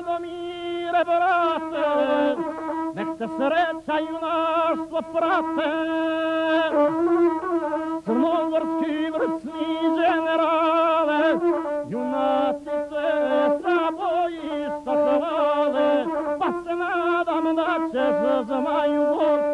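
Gusle, the single-string bowed folk fiddle, played solo: an ornamented melody with quick trills that keeps returning to one held note.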